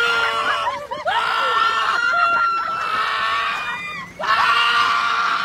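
People screaming on an amusement-park thrill ride: a few short cries, then two long, high screams, the second starting about four seconds in.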